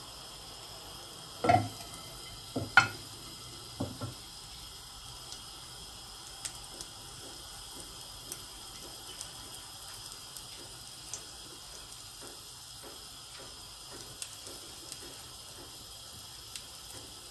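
A single piece of liver in vegetable oil in a nonstick frying pan, sizzling faintly with sparse small pops and a few louder clicks in the first four seconds. It is a test piece, and the oil is not yet fully hot.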